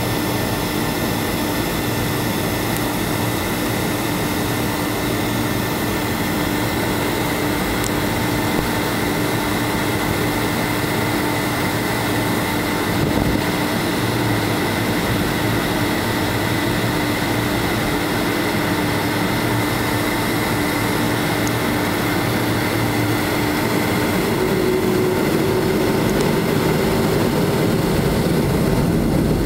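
Boeing 757 jet engines and airflow heard from inside the passenger cabin while the plane moves on the ground: a steady rush with a constant hum and a higher whine. About 24 seconds in, the hum shifts up in pitch and the noise grows a little louder.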